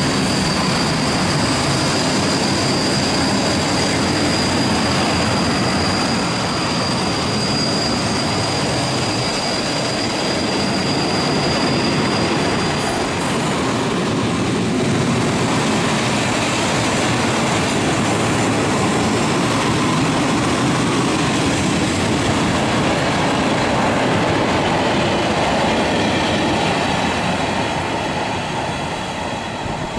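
Loaded freight wagons of a steel train rolling past at speed, the wheels making a steady rolling racket on the rails. A thin high wheel squeal rings over it through the first part and dies away about thirteen seconds in. The noise eases slightly near the end.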